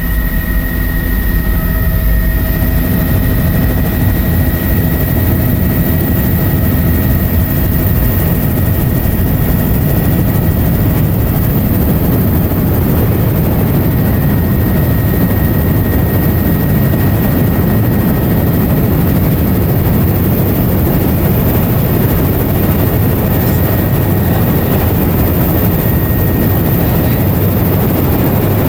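Helicopter heard from inside the cabin in flight: a loud, steady drone of rotor and engine, with a thin steady whine above it that fades out near the end.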